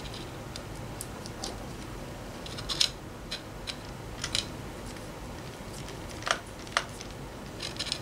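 Scattered small sharp clicks and ticks, about ten in all and irregularly spaced, from a precision screwdriver and a tiny screw being fitted into a laptop's metal cable bracket.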